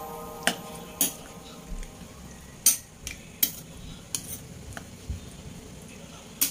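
Metal spoon stirring a wet salad of chopped eggplant, tomato and onion in a ceramic bowl, with about half a dozen sharp clinks of the spoon against the bowl.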